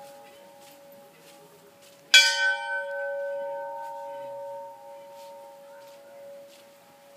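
A large hanging temple bell struck once about two seconds in, ringing out and slowly fading, over the fading ring of an earlier strike.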